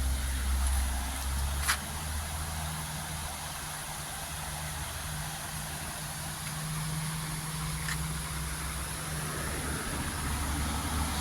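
A car going by on a road, its engine hum rising and fading, over a steady hiss of flowing river water.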